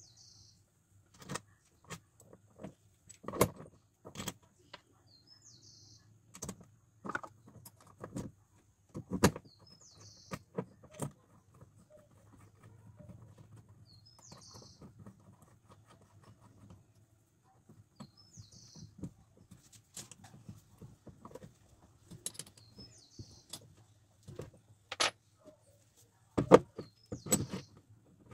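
Steel parts of a small home-made engraver's vise clicking and knocking against each other and on a wooden floor as they are handled and fitted together. The knocks are irregular with quiet gaps between them, and a few louder ones come near the end.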